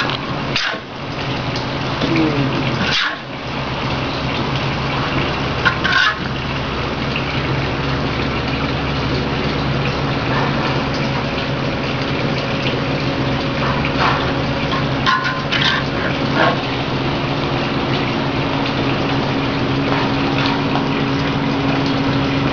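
Steady hissing of beef rendang cooking in a large wok at its late, dry stage, over a low steady hum. A few short scrapes of the metal spatula against the wok break in now and then.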